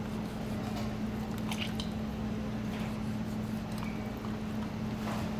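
Knife cutting through raw chicken meat and cartilage as a whole chicken is deboned, with soft wet squishing of the flesh being handled and a few faint clicks. A steady low hum runs underneath.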